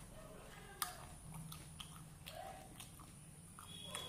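Crisp pani puri shells crunching as they are broken and chewed: faint scattered crackles and clicks, the sharpest about a second in.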